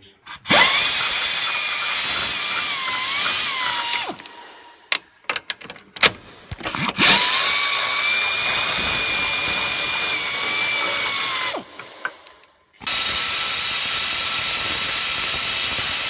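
Pneumatic 3/8-inch air ratchet with an extension running in three long bursts, unscrewing bolts: a loud air hiss with a whine that rises and falls in pitch, and small clicks between the bursts.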